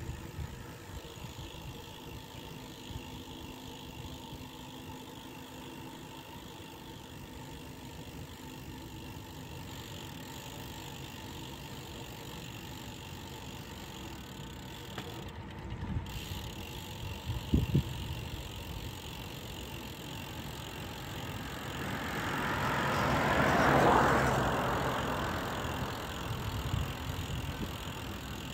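Bicycle freewheel ticking steadily as the rider coasts, over wind and road noise. A rushing sound swells and fades about three-quarters of the way through, with a couple of knocks shortly before it.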